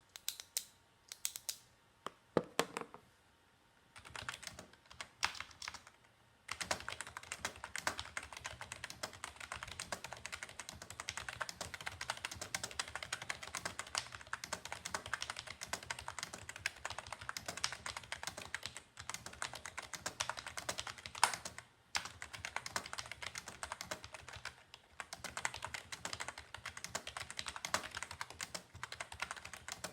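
Logitech G213 Prodigy membrane keyboard being typed on: a few separate key presses at first, then fast, continuous typing from about six seconds in, broken by two short pauses in the second half.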